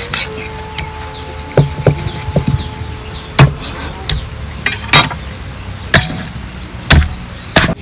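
Heavy knife or cleaver chopping on a cutting board: about seven sharp chops at an uneven pace, roughly one a second. Short high chirps repeat behind them.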